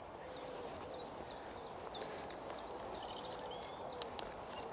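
A songbird singing a long run of short, high chirps, about two or three a second, over a quiet outdoor background.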